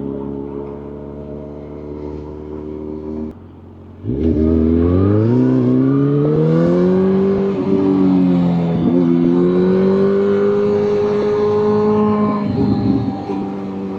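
Motorcycle engine running steadily, then, after a short break about three seconds in, accelerating with a rising pitch, dipping briefly near the middle as it shifts up, holding steady at higher revs and easing off near the end.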